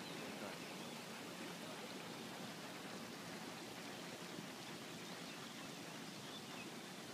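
Steady splashing hiss of a lake fountain's spray falling back onto the water.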